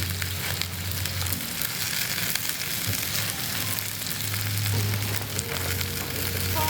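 Steak searing in hot oil in a pan, sizzling steadily with frequent small crackles, over a low hum that comes and goes.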